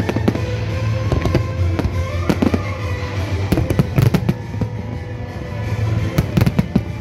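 Aerial firework shells bursting in quick succession, sharp bangs and crackling, with dense clusters of bangs about halfway through and again near the end, over continuous music.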